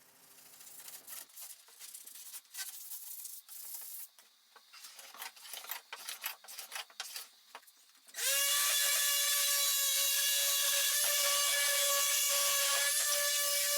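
Sandpaper on a hand plane rubbed in short, irregular strokes along rough wood edges. About eight seconds in, a table saw starts up and runs at a steady pitch, much louder than the sanding.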